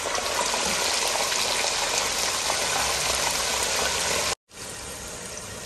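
Frozen diced chicken sizzling hard as it is tipped into hot ghee in a frying pan, the water it lets go spitting in the fat. A little over four seconds in the sound cuts out for a moment, then the sizzling comes back quieter.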